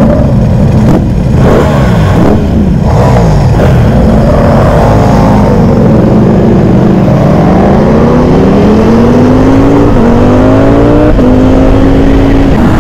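Ducati motorcycles pulling away from a standstill, then the Streetfighter V4 SP's V4 engine accelerating hard, its pitch rising and dropping with two quick upshifts near the end.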